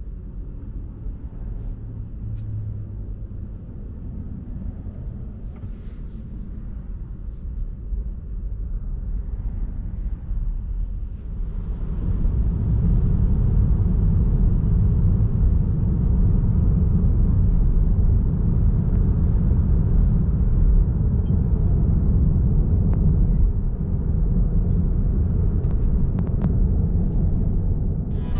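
Low road and tyre rumble heard inside a Tesla Model 3's cabin while driving, with no engine sound. It grows clearly louder about twelve seconds in and then holds steady.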